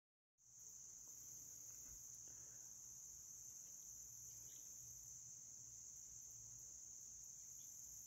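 Faint, steady, high-pitched insect chorus that goes on without a break.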